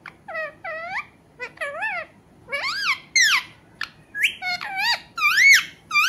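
Rose-ringed (Indian ringneck) parakeet calling: a string of short squawks whose pitch bends up and down. They get louder and settle into a regular run of arching calls, about two a second, near the end.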